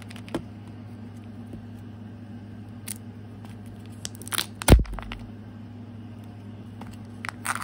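Kinder Joy toy packaging being handled and opened by hand: scattered plastic crinkles and clicks, with one loud knock a little under five seconds in.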